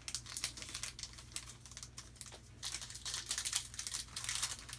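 Foil wrapper of a trading card pack crinkling and tearing as it is worked open by hand: a quick run of crackles, thickest over the last two seconds.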